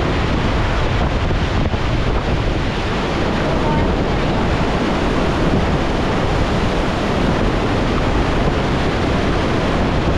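Loud, steady rush of river whitewater, with wind buffeting the microphone.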